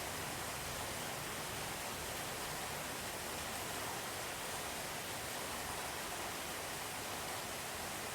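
Steady rain heard from indoors: an even, unbroken hiss.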